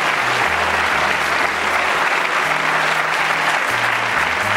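Studio audience applauding, with a band's bass line playing underneath.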